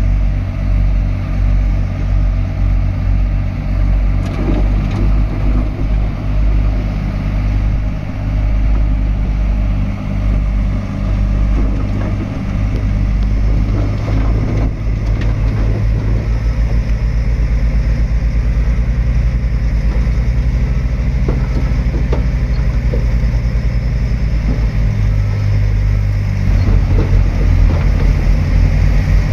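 Heavy diesel engine of a Shantui DH17C3 crawler bulldozer running under steady load while it pushes dirt, with a few short clanks. The engine gets louder in the last few seconds as the load comes on harder.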